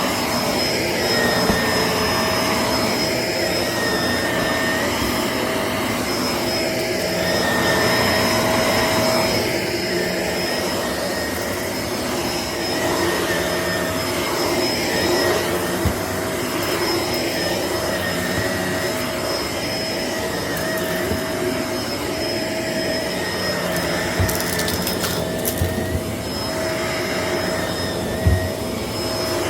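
Shark upright vacuum running steadily with a constant motor whine, its sound swelling and easing every couple of seconds as it is pushed back and forth. A few crackles of debris being sucked up come near the end.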